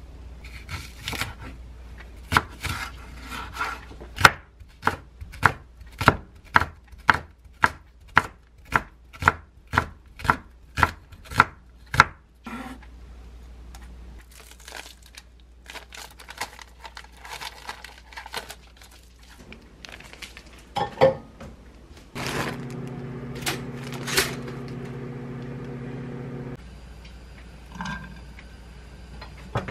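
Kitchen knife slicing a green onion on a wooden cutting board: sharp, even knocks about two a second, then softer scraping of the blade on the board. Later a steady low hum runs for a few seconds, and near the end comes light scraping as the slices are pushed off the knife into a frying pan.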